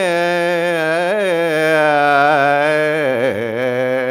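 A man chanting a divine name as one long, drawn-out melodic phrase, his voice wavering up and down and dropping lower about three seconds in.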